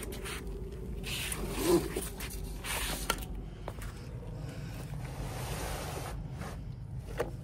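Footsteps in sandals scuffing across stone patio tiles, with a few sharp ticks.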